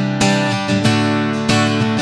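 Acoustic guitar strumming chords, a stroke about every half second, with the chords ringing between strokes.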